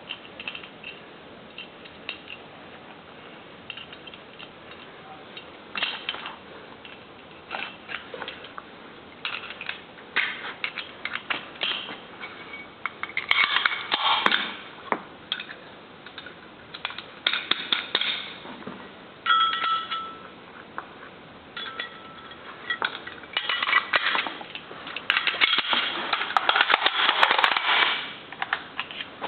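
Metal parts of a Browning M2 .50-calibre heavy machine gun being handled and fitted together: irregular metallic clicks, clacks and knocks, with a couple of brief metallic rings around the middle and a busy run of clatter near the end.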